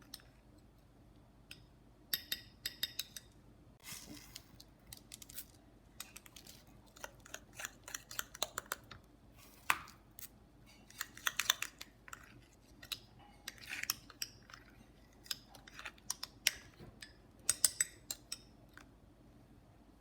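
Cutlery clinking and scraping against a mug, in irregular short strokes that start about two seconds in and go on in clusters.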